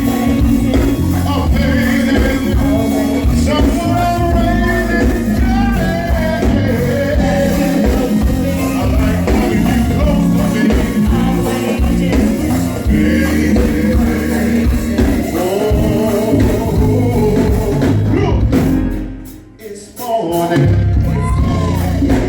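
A go-go band playing live: a dense bass and percussion groove with singing over it. The band cuts out for about a second near the end, then comes back in.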